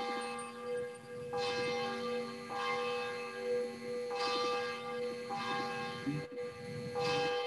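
Church bell ringing after the service: struck about every second and a half, its tones ringing on between strikes.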